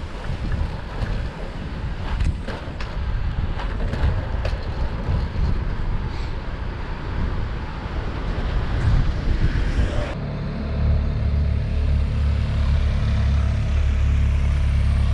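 Wind rushing over the microphone of a camera on a moving bicycle, a steady low rumble with road and tyre noise under it. About ten seconds in the sound changes abruptly to a heavier, steadier low rumble.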